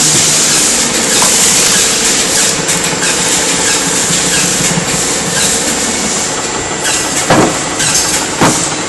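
Geared-motor screw-cone wood splitter running steadily with a constant motor hum and hiss, and two sharp cracks near the end as the wood splits.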